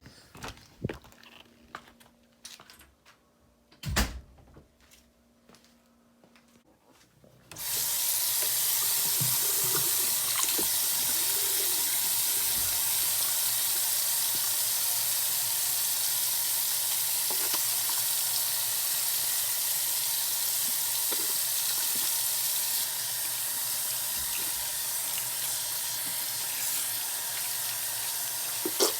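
A few light knocks, then a water tap turned on about a quarter of the way in, running steadily into a sink.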